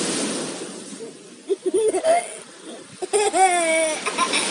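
Surf washing in, fading after about a second, then a young child's voice laughing: a few short laughs about a second and a half in, and a longer laugh with falling pitch around three seconds in. The surf swells again near the end.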